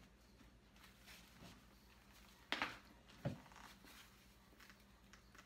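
A large canvas-and-leather Coach Field Tote being handled: faint rustling, then a short, sharp rustle about two and a half seconds in followed by a soft thump.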